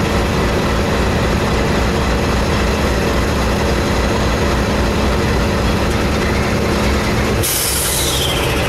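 Norfolk Southern GE Dash 9-40CW diesel locomotives idling with a steady low hum. Near the end the hum's tone drops out and a loud hiss of air starts, air let out of the train's brake system.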